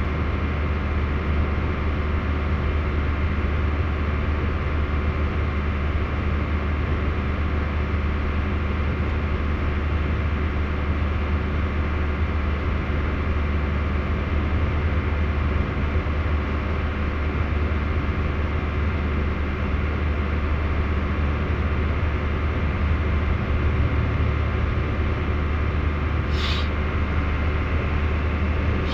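Steady road and engine noise inside a vehicle's cabin at highway cruising speed: a deep low rumble with a faint steady hum above it. A brief sharp click comes near the end.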